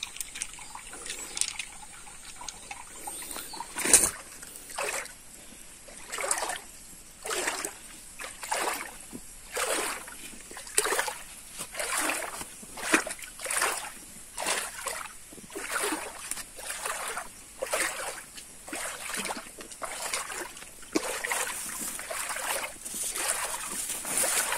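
Wading through a shallow muddy creek: splashing footsteps in water, a little more than one a second. Before them comes some dripping and trickling, and one sharp splash about four seconds in.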